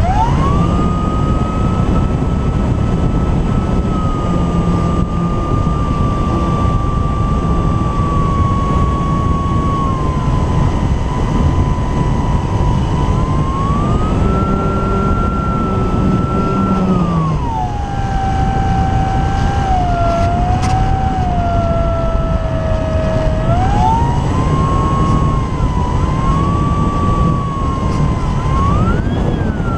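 Electric motor and propeller of an Apprentice S 15e RC trainer plane in flight: a steady whine that rises and falls with the throttle. It drops lower for several seconds past the middle and climbs again near the end. Under it is loud wind rush on the camera strapped beneath the plane.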